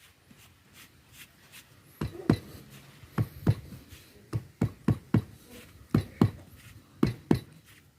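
Irregular knocks and taps on the drumhead of a PVC-pipe ketipung as a freshly glued tyre-rubber patch is pressed flat. The knocks start about two seconds in and come roughly one or two a second, each with a brief low ring.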